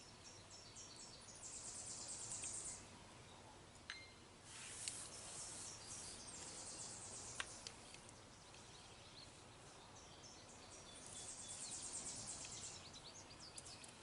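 Faint outdoor ambience with three bursts of high-pitched, rapidly pulsing chirring, a second or two each, and a few light clicks in between.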